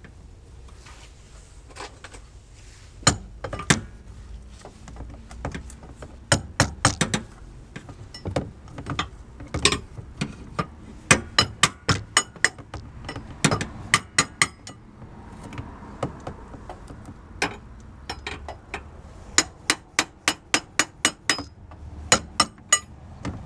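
A hammer striking a steel extension bar held against the starter motor of a 2004–06 Toyota Sienna's 3.3-litre V6, in runs of quick metallic taps with short pauses between. The starter is being knocked to jar its worn brushes or jammed solenoid back into contact on a car that won't start.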